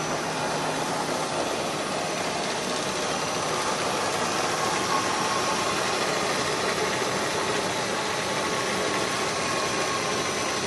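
IZh 250ITV precision lathe running steadily, its spindle and drive giving an even mechanical whir with a faint steady whine.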